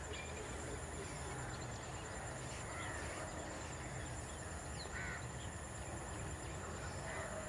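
Outdoor ambience with birds calling now and then: a few short, faint calls, about three seconds in, five seconds in and near the end, over a steady low rumble and a thin high whine.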